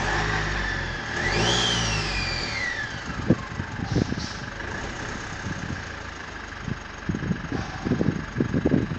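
2018 Mitsubishi Triton's 2.4-litre turbo-diesel engine idling, given one short rev about a second in, with a whine that rises and falls with it before it settles back to idle. Several irregular sharp knocks sound over the idle in the second half.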